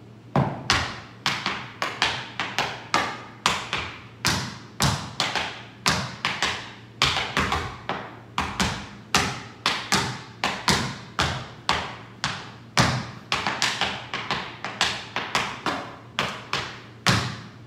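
Tap shoes striking a wooden studio floor as a dancer performs an entry-level tap combination: a long run of sharp taps, about two to three a second, in an uneven rhythm.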